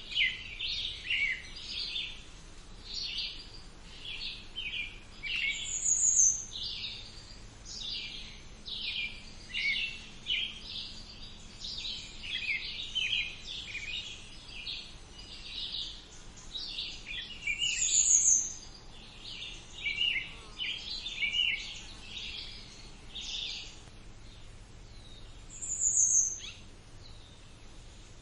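Several songbirds singing together in a summer chorus: a steady stream of quick chirps and short trills. Three times, a very high, thin note slides downward and stands out as the loudest call.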